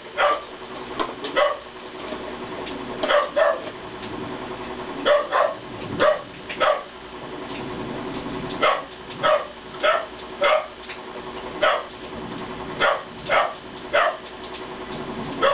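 A dog barking repeatedly, in short runs of two or three barks with brief pauses between.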